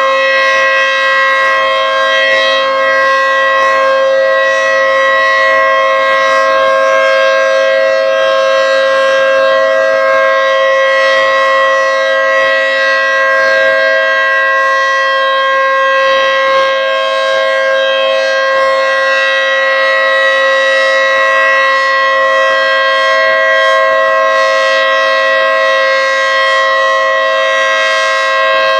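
Federal Signal 3T22 three-tone rotating tornado siren sounding its steady alert signal: a loud, held chord of several tones that does not rise or fall in pitch.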